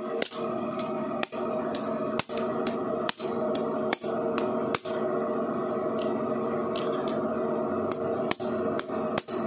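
Irregular sharp metallic taps and clicks, about a dozen in all, as a steel cover plate is handled and seated on the engine's aluminium crankcase. Under them runs a steady hum with several held tones.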